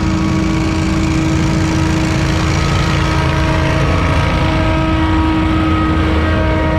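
Lawn-care machine engine running steadily at working speed, with a steady whine over the engine noise.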